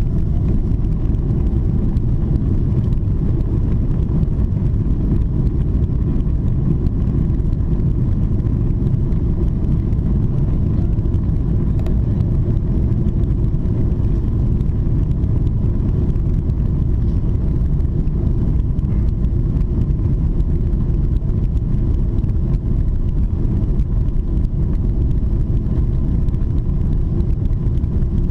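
Boeing 777-300ER on its takeoff roll, heard from the cabin: the GE90-115B engines at takeoff thrust and the wheels rolling on the runway as the jet accelerates. It is a steady low rumble with a faint whine above it.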